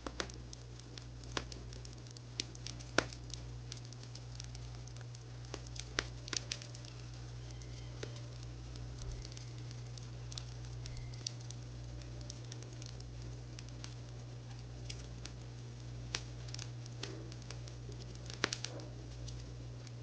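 Wood fire crackling: irregular sharp pops and snaps, a few louder ones about three seconds in and near the end, over a steady low hum.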